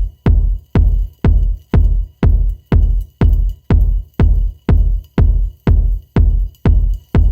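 Electronic dance music with a heavy, deep kick drum on every beat, about two beats a second.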